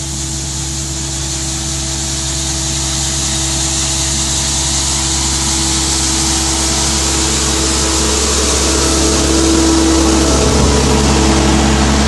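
Bobcat S450 skid steer's diesel engine running steadily with its sweeper broom spinning, the bristles hissing over the gravel road surface. It grows slightly louder.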